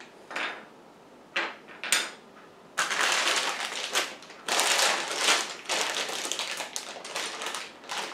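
Clear plastic bags full of building-brick parts crinkling and rustling as they are picked up and handled: a few short rustles in the first two seconds, then almost continuous crinkling from about three seconds in.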